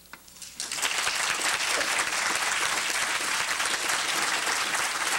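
Audience applauding, starting suddenly about a second in and continuing steadily.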